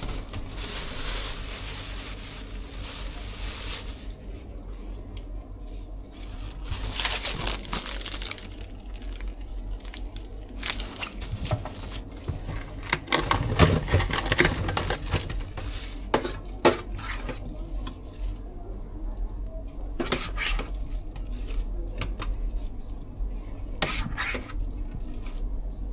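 Food-preparation handling noises: scattered clinks, knocks and scrapes of utensils and containers with rustling and tearing, busiest about halfway through, over a steady low hum.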